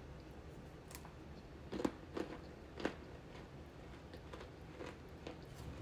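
Crunchy candy being bitten and chewed: a few sharp crunches close together about two seconds in, with softer ones before and after.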